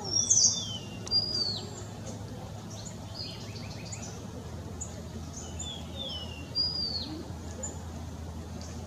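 Bird calls: high, sharp whistled notes that slur downward, in a loud cluster just after the start and another about six and a half seconds in, with a few fainter notes between, over a steady low hum.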